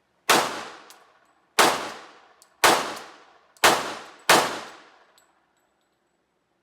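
Five pistol shots, each a sharp crack followed by a ringing echo that fades over about a second. They are spaced about a second apart, and the last two come closer together.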